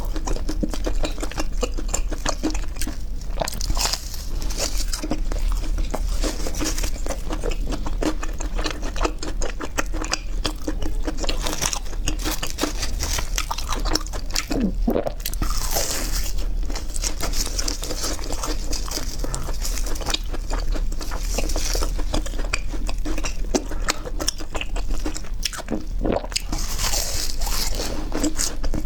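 A person biting and chewing crunchy fried food close to the microphone: continuous irregular crackling crunches, with a low steady hum underneath.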